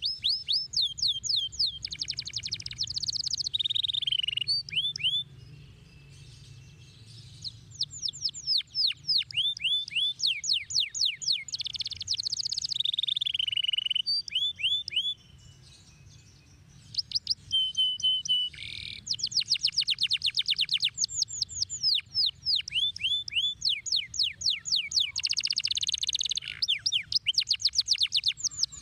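Domestic canary singing: long, fast trills of repeated falling chirps, in phrases broken twice by pauses of two to three seconds.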